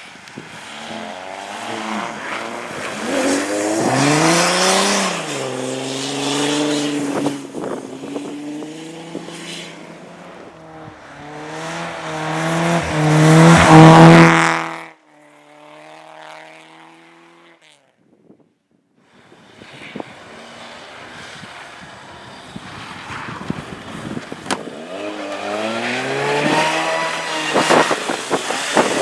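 Car engines being driven hard on a race track, revving up and dropping back through gear changes, loudest about halfway through before cutting off abruptly. After a brief gap of near silence, another car's engine builds up, revving harder towards the end.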